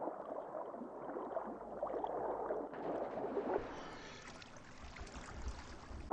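Sea water sloshing and gurgling. About three seconds in it turns brighter, with a hissing splash of water at the surface.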